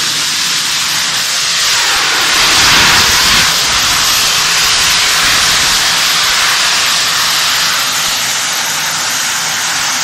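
Gravity Industries jet suit's miniature jet turbines running with a loud, steady high-pitched rushing hiss, swelling a little about two to three seconds in.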